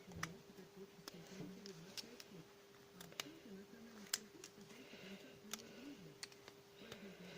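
Faint, scattered clicks and taps of small parts being handled while the motor of a cordless drill is taken apart by hand, about eight sharp clicks spread irregularly over a steady low hum.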